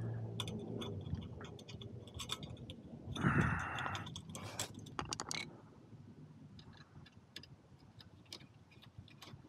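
Light metallic clicks and ticks of a worm-drive hose clamp being fitted around a motorcycle exhaust heat shield and tightened with a screwdriver, with a brief louder noise about three seconds in.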